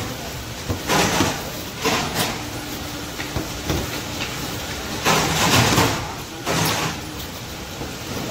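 Slipper-factory machinery running with a steady rumble and irregular bursts of loud clatter, bunched twice.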